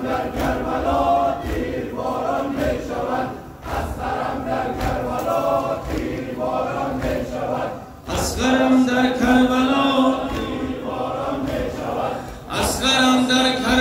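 Crowd of men chanting a Muharram mourning lament (noha) together in sung phrases, holding long notes about eight seconds in and again near the end.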